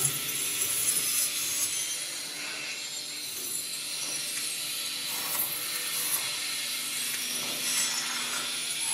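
Electroacoustic fixed-media music playing over loudspeakers in a hall. It is a dense, hiss-like noise texture, brightest in the upper range, with scattered sharp clicks and faint low sustained tones beneath.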